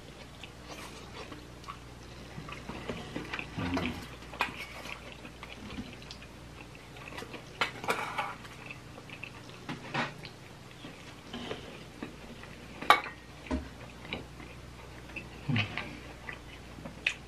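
Eating at close range: chewing on fried breaded mozzarella sticks, with scattered small clicks and clinks of a fork and the sticks against stainless steel dipping bowls. The sharpest clink comes about 13 seconds in.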